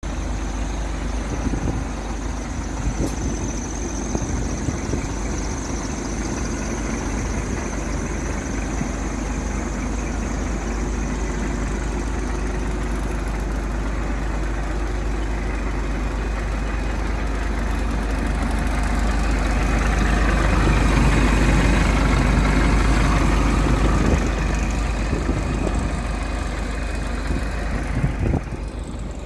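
Scania R420 truck's six-cylinder diesel idling steadily, growing somewhat louder about two-thirds of the way through.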